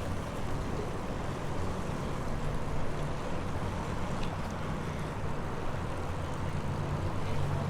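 Steady low rumble of riding noise on a moving bicycle, with the vehicle-like hum of road traffic mixed in and a few faint ticks.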